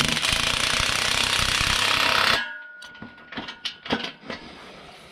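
Cordless impact driver hammering a nut onto a bolt of a steel engine-hoist frame in a fast rattling burst that stops about two and a half seconds in, followed by a few light clicks of handling.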